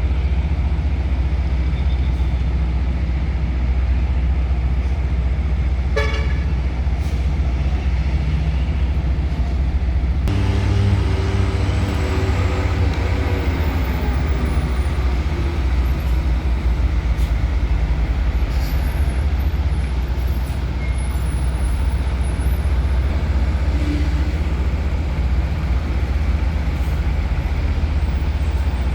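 Heavy vehicle traffic at a ferry loading ramp: truck and bus engines running with a steady low rumble. About ten seconds in, a pitched engine note starts up and slowly falls in pitch over several seconds.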